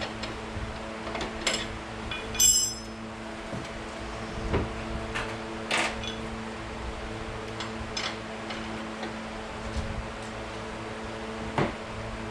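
Hand tools clinking and knocking against suspension bolts as a wrench is worked onto them, with a ringing metal clink about two and a half seconds in and a few more clicks spread through. A fan hums steadily underneath.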